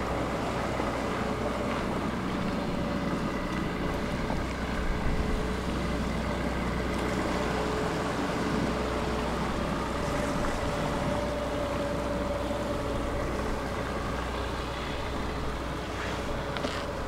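Commuter ferry under way: a steady engine drone with an even rushing noise over it and a few faint steady tones.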